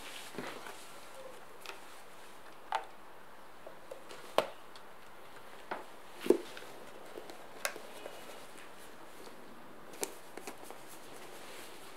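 Donlim plastic heating lunch box being closed: a series of short clicks and knocks as the lid is set on and the side latches are snapped shut, the loudest about six seconds in, then a click about ten seconds in as the air is pressed out and the vent plug pushed in.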